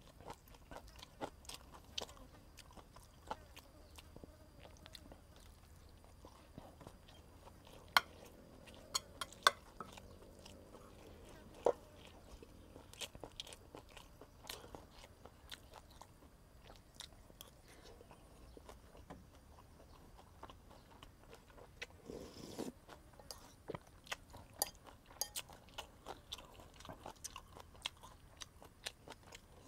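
A person eating close to a clip-on microphone: chewing and crunching duck larb with raw vegetables, with many short scattered clicks of spoon and fingers on the plate.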